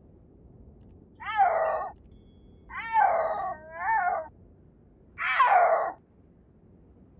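A cat meowing: four drawn-out calls, each rising and then falling in pitch, with the second and third close together.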